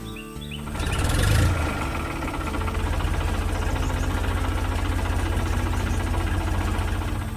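A large engine running with a rapid, even low chugging. It starts about a second in, swells briefly, then settles to a steady idle.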